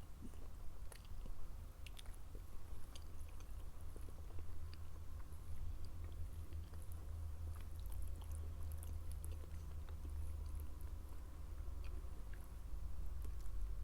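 Close-miked chewing of soft food, with wet mouth sounds and small scattered clicks over a low steady rumble.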